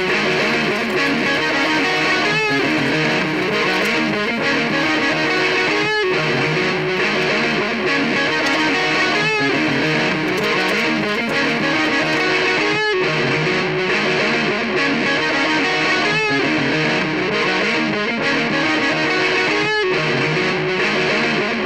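Distorted electric guitar riff played through a MOOER GE100 multi-effects unit's looper, the same phrase repeating about every three and a half seconds.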